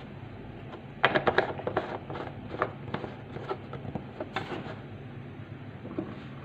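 Kitchen clatter of a frying pan on a gas stove's metal grate: a quick run of sharp clicks and knocks about a second in, then scattered single clicks, over a steady low hum.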